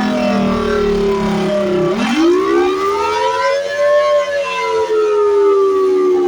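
Federal Signal Thunderbolt 1000T outdoor warning siren sounding a test wail, loud and steady in level. The pitch slides down, swoops sharply up about two seconds in, peaks around four seconds in, then begins a slow fall.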